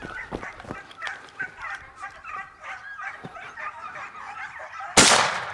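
Hunting hounds yelping and giving tongue on a hare's trail. Near the end comes a single loud shotgun shot fired at the hare.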